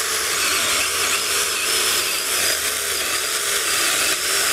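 Jupiter JMCS-18P cordless brushless mini chainsaw with a 4-inch bar cutting steadily through a log thicker than its bar. The motor holds its speed under load without binding or stalling.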